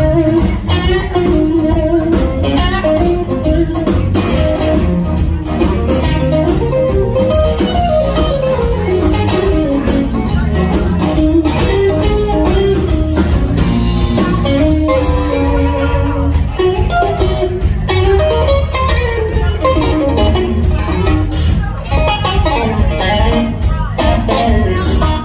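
Live band playing an instrumental passage: electric guitar playing a moving lead line over a steady bass and drums with cymbal hits.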